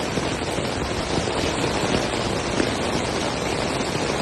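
Water rushing in a steady, dense hiss with no let-up, the sound of heavy flood flow or downpour.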